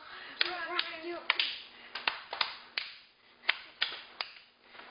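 Hand clapping: about ten sharp claps at uneven spacing, with a voice vocalising over the first few claps.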